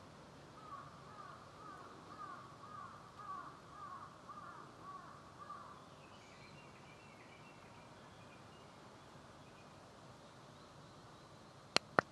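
Faint bird calls: a run of short repeated calls, about two a second, for the first five seconds or so, then fainter, higher calls from another bird, over a soft steady hiss. Two sharp clicks near the end.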